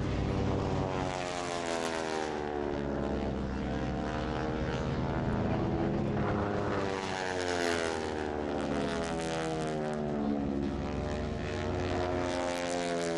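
North American AT-6 Texans' Pratt & Whitney R-1340 radial engines and propellers droning in flight. The pitch slides up and down several times as the planes pass.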